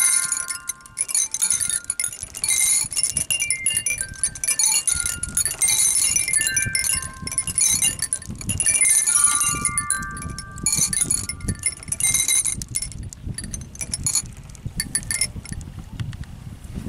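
Bright chime-like electronic tones at several pitches, each held briefly and following one another, from a musical playground's spring rider as a child rocks on it. A low rumble sits underneath, and the tones thin out in the last few seconds.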